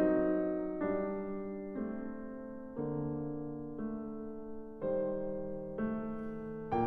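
Slow background piano music: soft chords struck about once a second, each fading before the next.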